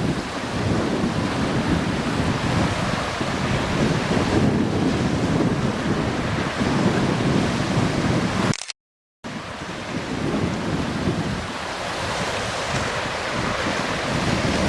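Wind buffeting the microphone over the wash of waves on the shore, as a loud, gusting rumble. The sound cuts out completely for about half a second a little past the middle, then resumes.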